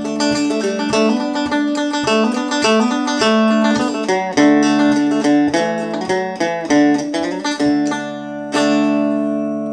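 Banjo with active pickup electronics played through an amplifier on a clean setting, tuned to D: a quick run of picked notes, ending in a final chord struck near the end that rings on and slowly fades.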